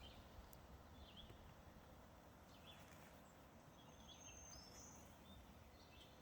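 Near silence outdoors with faint bird calls: a few short high chirps and one longer high whistled note near the middle.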